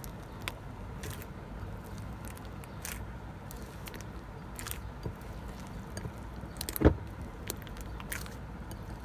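Slime with body lotion mixed in, squeezed and worked by hand, making scattered small clicks and pops, with one louder pop about seven seconds in.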